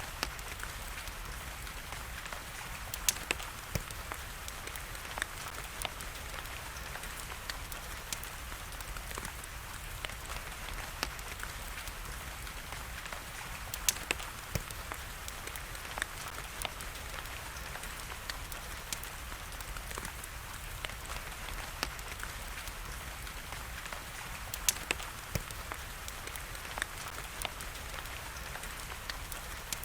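Steady hiss of falling rain with the irregular sharp crackles and pops of a burning wood fire scattered through it.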